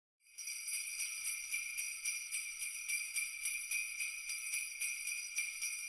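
Jingle bells shaken continuously in a steady rhythm, starting a moment in after a brief silence.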